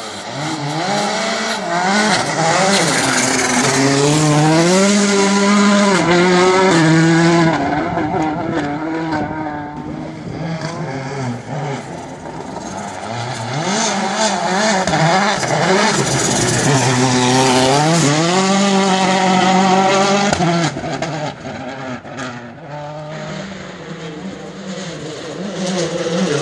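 Rally car engines revving hard as the cars come past, the pitch climbing and dropping again and again through the gears. There are two main passes, loudest around five to seven seconds in and again around sixteen to twenty seconds in.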